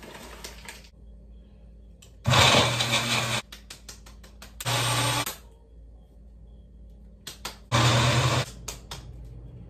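Magic Bullet personal blender run in three short pulses, about a second each, the motor whirring as it blends smoothie ingredients; the first pulse is the longest and loudest. Light clicks come between the pulses.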